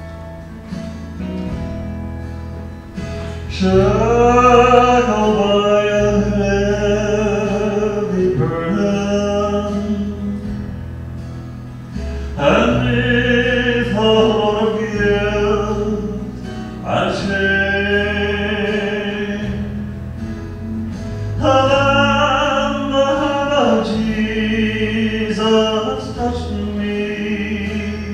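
A man singing a gospel hymn into a microphone over steady instrumental accompaniment, in several long phrases with short instrumental gaps between them.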